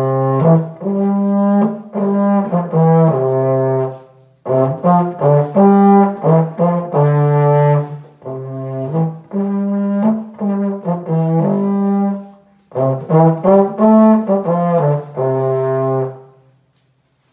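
Solo euphonium playing a melody in three phrases of separate notes, with short pauses between the phrases; the playing stops near the end.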